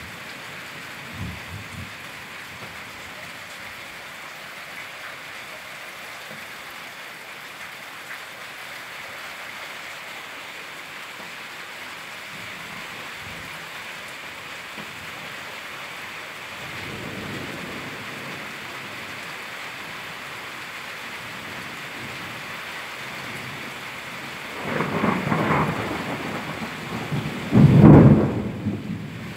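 Steady rain falling, with thunder rumbling faintly about halfway through, then loudly twice near the end, the second rumble the loudest.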